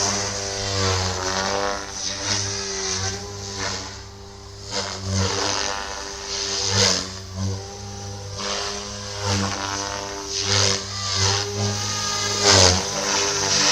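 SAB Goblin 420 electric RC helicopter in flight: a steady motor and rotor whine whose higher pitch glides up and down, with repeated loud rotor whooshes surging every second or two.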